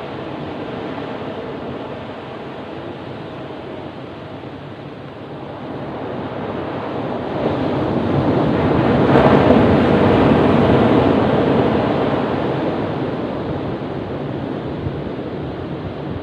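Ocean waves rumbling on a beach: a steady wash of surf that swells into a louder breaking wave about halfway through, then eases back.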